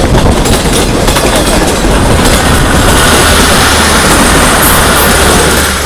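Express passenger train running close past, a loud, steady rumble and rattle of wheels on the rails.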